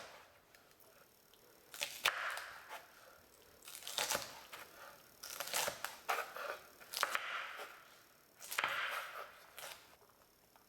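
Knife cutting through a bunch of fresh French beans, in about six short bursts of crisp cuts spaced a second or two apart.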